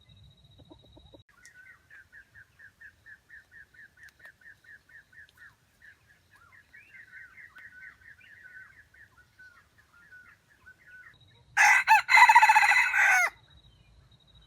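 A long run of quick, even, high chirping notes, about five a second, then near the end a loud rooster crow lasting under two seconds.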